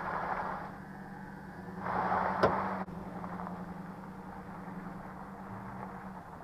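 Pickup truck engine running with a steady low hum as the truck creeps along a gravel road. There are two short rushes of noise, the second ending in a sharp click about two and a half seconds in.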